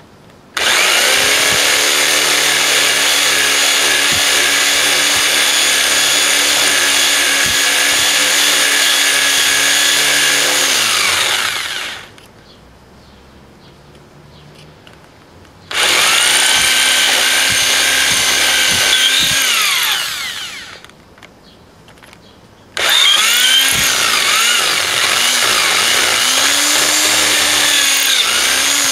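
Electric drill boring a twist bit into a hard drive, the motor whining in three runs separated by pauses. The first run lasts about eleven seconds and winds down in pitch as it stops, a shorter second run follows, and in the third run near the end the pitch wavers up and down.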